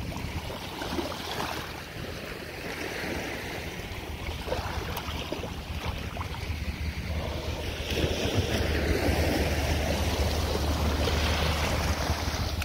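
Wind buffeting the microphone over small choppy waves lapping. The low wind rumble gets stronger a little past halfway through.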